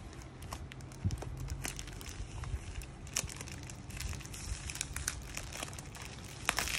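A padded plastic mailer envelope crinkling and crackling as fingers pick and press at its edge, in irregular small crackles that grow busier near the end.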